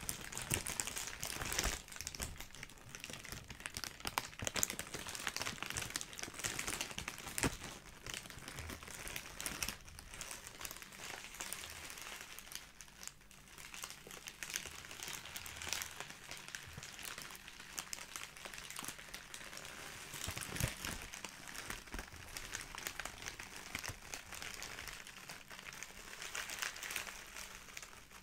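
Clear plastic bag being squeezed and crumpled, a continuous run of crinkling and crackling that eases off briefly about halfway through.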